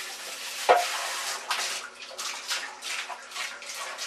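Water splashing in a bathtub, in irregular splashes, with one sharp knock a little under a second in.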